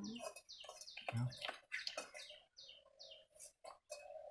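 Small birds chirping, short high downward chirps repeated two or three times a second.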